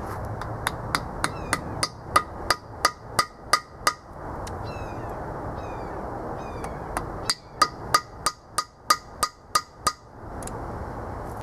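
Two runs of sharp metallic taps or clicks, about three a second with a short ringing tone to each, on engine-building metalwork. The first run has about eleven and the second, starting about seven seconds in, has about ten.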